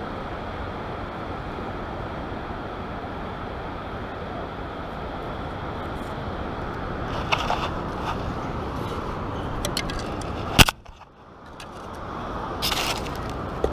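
Steady rushing noise of wind and surf on the beach, with a few light clicks and a sharp knock about ten seconds in, after which the noise drops away for a moment. Near the end comes a brief scraping in the sand.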